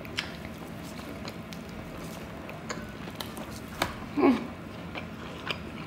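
Close-miked eating: wet mouth clicks and smacks from chewing and slurping a mouthful of sauced noodles, with a short falling hum from the eater about four seconds in.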